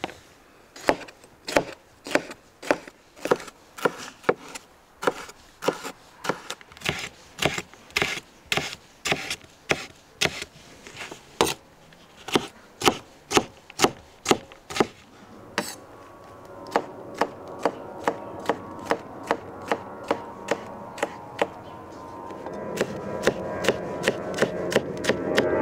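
Cleaver chopping bell peppers on a wooden cutting board: sharp, regular knocks of the blade on the board, about two a second, quickening to a faster dicing rhythm in the second half. A steady drone swells up underneath the chopping in the later part.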